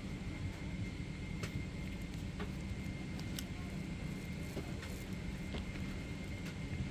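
Steady low hum of an airliner's cabin, with a thin steady whine above it and a few light clicks.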